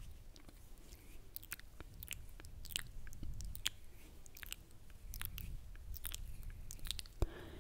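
Wet mouth sounds close to a microphone: irregular soft lip smacks and tongue clicks, over a faint low rumble.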